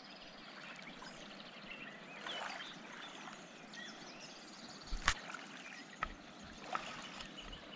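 Faint, steady rush of a flooded river's flowing water, with small birds chirping now and then. A sharp click about five seconds in, with a couple of smaller ones after it.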